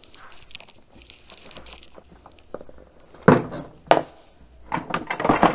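A plastic hard case being handled and set down on a wooden tabletop: soft shuffling and rustle, then two sharp knocks about three seconds in and a quick cluster of knocks and clicks near the end.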